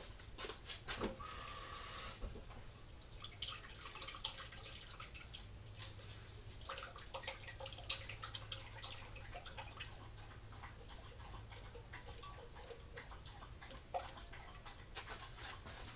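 Water running briefly from a kitchen tap into a blender jar to rinse out leftover puree, about a second in, followed by faint scattered clicks as the jar is handled.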